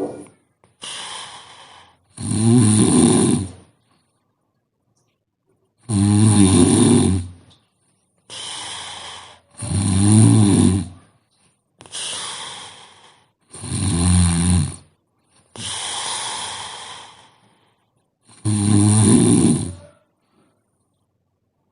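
A sleeping woman snoring: five loud snores at about four-second intervals, each followed by a quieter breath, with short silences between.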